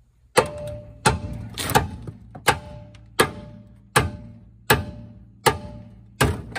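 A hammer striking the metal front end of a 1981 Camaro Z28: about nine hard blows, roughly one every three-quarters of a second, each with a short metallic ring.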